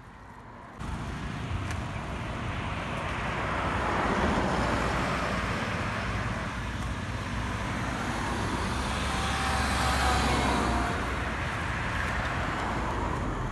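Road traffic: cars passing on the road, a steady rumble that swells as vehicles go by, louder about four seconds in and again around ten seconds. It starts suddenly just under a second in.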